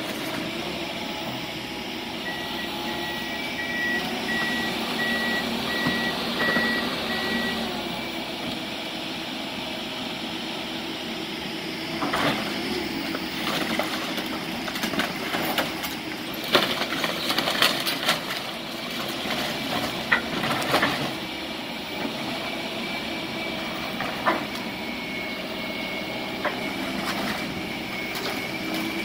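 Heavy demolition machinery running steadily, its back-up alarm beeping in a string of evenly spaced beeps a few seconds in. From about midway, debris crashes and clunks in bursts.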